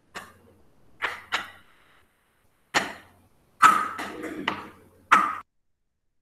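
A string of sharp knocks and clatter, about seven strikes with a denser burst of handling noise halfway through, heard through a video-call microphone; the sound cuts off abruptly.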